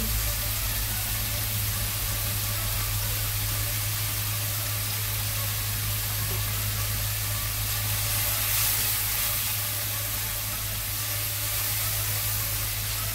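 Diced smoked bacon sizzling steadily in oil in a frying pan, over a constant low hum.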